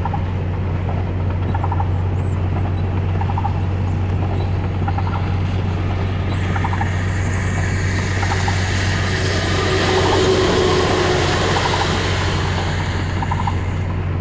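Vehicle driving in heavy rain, heard from inside: a steady low engine and road drone with a faint tick about every second and a half. From about six seconds in, a hiss of rain and tyre spray swells, is loudest around ten seconds, and fades near the end.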